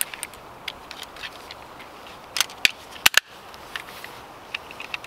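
Gerber Freescape folding camp saw being unfolded by hand: a scattered run of sharp clicks and clacks as the blade and frame parts are swung out and snapped together, the loudest two close together about three seconds in.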